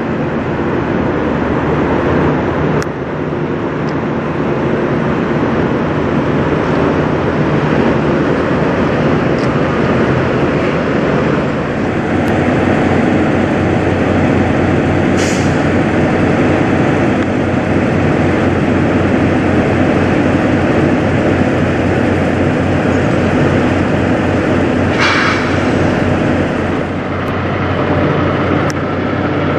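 Kenworth W900 semi truck's diesel engine running steadily, first at idle and then with a deeper pulsing throb as the tractor-trailer moves off. Two short hisses of air from the air brakes come about halfway through and again a few seconds before the end.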